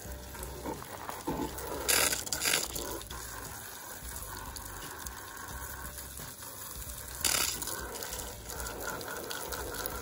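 Stream of water from a hose splashing steadily onto a Plasti Dip-coated Jeep grille. There are brief louder bursts of spray about two seconds in and again near seven seconds.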